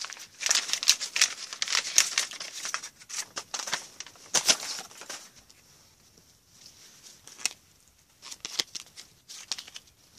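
Crinkling and tearing of a plastic trading-card pack wrapper, dense crackles for about the first five seconds, then quieter with scattered clicks as the cards are handled.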